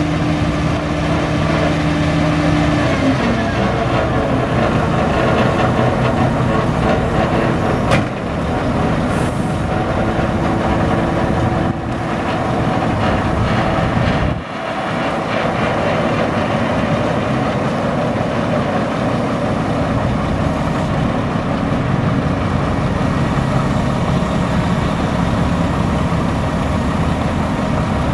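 Diesel engine of a 2002 Mack RD688S roll-off truck running steadily while its tarp arm is worked. The engine note drops about three seconds in, and there is a sharp click about eight seconds in.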